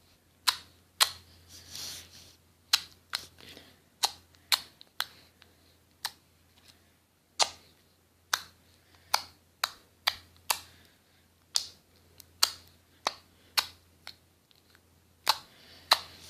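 Clear slime being squeezed and pressed in the hands, giving off sharp, crisp clicks and pops at an irregular pace of about one or two a second.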